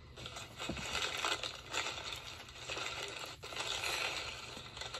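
A food wrapper being unwrapped by hand, with an irregular crinkling and rustling.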